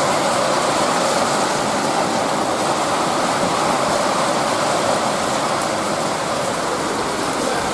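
Steady rain shower falling, an even hiss that holds level throughout.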